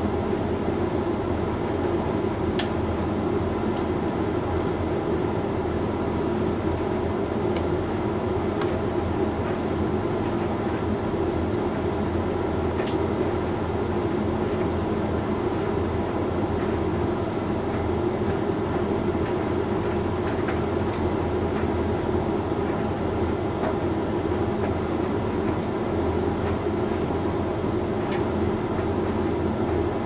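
Hoover Link X Care HLX C10DRGR condenser tumble dryer running mid-cycle on its Rapid 45 programme: a steady hum of the motor and turning drum, with a few faint clicks.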